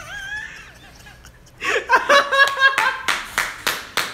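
Men laughing, a quiet chuckle first and then loud laughter from about halfway through, joined near the end by rapid clapping at about four claps a second.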